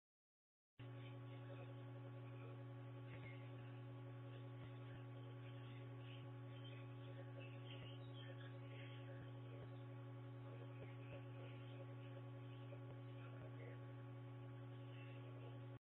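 Steady electrical hum with several fixed tones layered over it, starting abruptly about a second in and cutting off just before the end.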